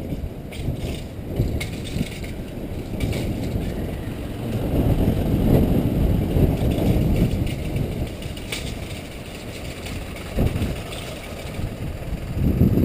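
Typhoon wind buffeting the camera microphone during a ride, a rough rumble that swells about halfway through, with scattered rattles and clicks from the ride over wet pavement.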